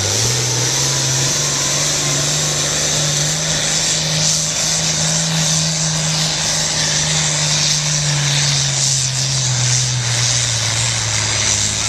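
International Harvester turbo diesel tractor at full throttle, pulling a weight-transfer sled. The engine note climbs about a second in and holds steady, then sags over the last few seconds as the sled's load builds and the engine lugs down.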